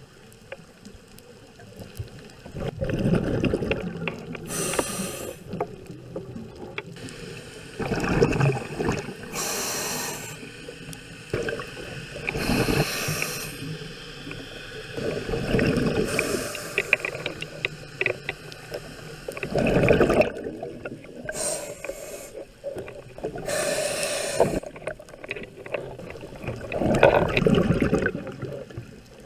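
A scuba diver breathing through a regulator underwater: a short hiss on each inhale and a longer rumble of exhaled bubbles, about every four seconds.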